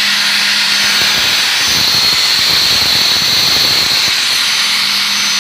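A power tool running loudly and steadily with a high whine. From about a second and a half in until about four seconds, its steady hum gives way to a rougher, grating sound.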